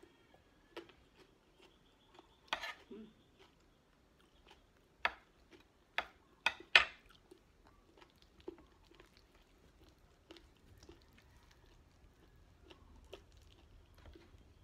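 Close-up chewing and wet mouth sounds of someone eating chicken adobo and rice, with scattered sharp clicks and smacks, a cluster of loud ones around five to seven seconds in.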